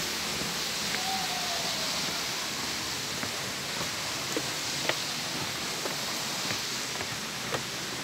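Steady rush of waterfall water, with irregular light knocks of footsteps on the wooden boardwalk planks and one short falling whistle about a second in.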